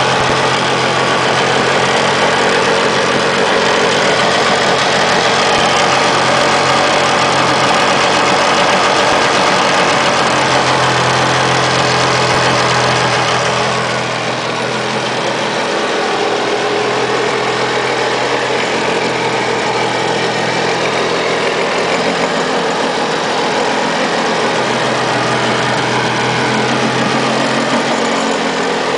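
Two-stroke twin engine of a 1988 Kawasaki JS550 stand-up jet ski idling steadily, running well after its carburettor and fuel tank were flushed. It drops a little in loudness about halfway through, then holds steady.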